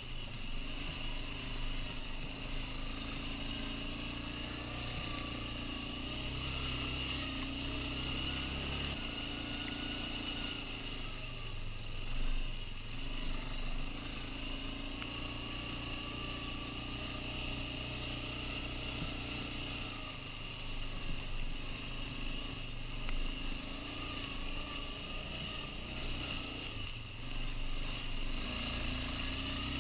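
Quad bike (ATV) engine running while riding, its revs rising and falling, heard from a helmet-mounted camera.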